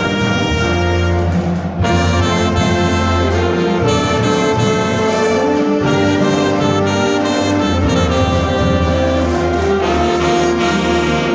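A band with a large brass section playing: loud held chords over a low bass line, with the notes changing every couple of seconds.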